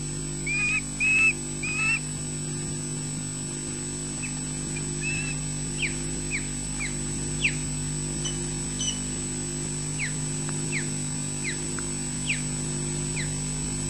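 Ospreys calling on the nest: three louder whistled calls in the first two seconds, then a run of short, sharply falling chirps, about one or two a second. A steady electrical hum runs underneath.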